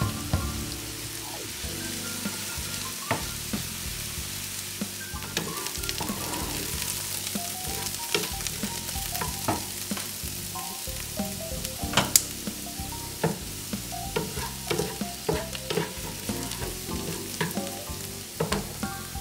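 Diced sweet onion and Anaheim pepper sizzling in melted butter in a nonstick skillet. A wooden spatula stirs them, clicking and scraping against the pan at irregular moments, with a few louder knocks.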